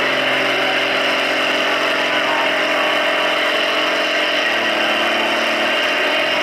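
Farm tractor's diesel engine running hard under load as it drags a weight-transfer sled, with a steady engine note that drops a little about four seconds in.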